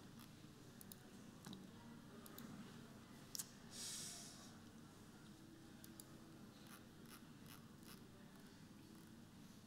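Near silence: quiet room tone with a few faint scattered clicks and a short hiss about four seconds in.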